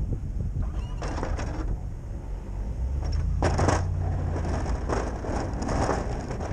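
Snowplow blade on a pickup truck scraping and crunching as it pushes snow across the pavement, in several bursts with the loudest about three and a half seconds in, over the steady low running of the truck's engine.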